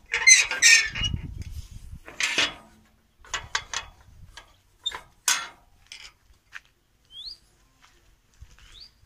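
Birds calling in a string of short calls, with two quick rising chirps near the end, over footsteps on a gravel path.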